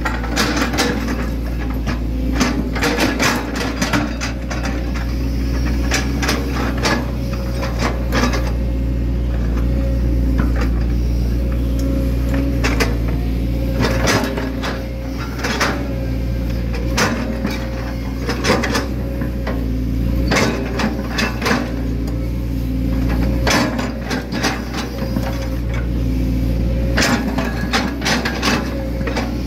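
Hitachi Zaxis 110 excavator's diesel engine running steadily, heard from the cab. Over it come frequent metallic clanks and knocks as the bucket scrapes and pats down soil.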